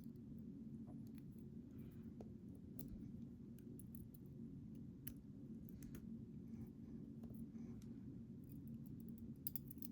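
Faint, scattered small clicks of metal lock parts being handled as a gutted challenge lock is put back together, over a steady low hum.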